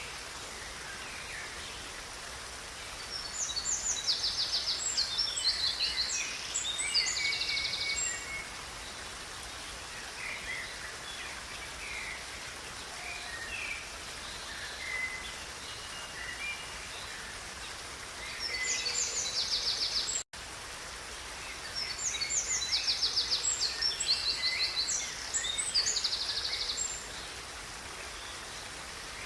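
A songbird singing over the steady rush of river water, in two long bursts of rapid trills and chirps with scattered single calls between them. The sound cuts out for an instant about two-thirds of the way through.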